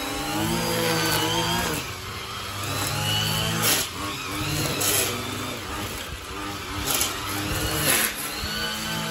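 Stihl gas string trimmer running and being throttled up and down as it cuts grass along a wall, its engine pitch rising and falling every second or so, with a few sharp ticks of line striking.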